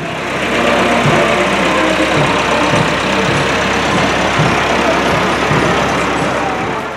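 Motor vehicle engine running steadily close by: a loud, even rushing noise over a low hum.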